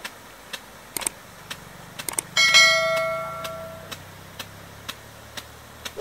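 Pelican HT-42G 1.5-inch impact rain gun spraying: a steady ticking about twice a second. About two and a half seconds in comes a loud metallic ring that fades over about a second and a half. A heavy thump lands at the very end.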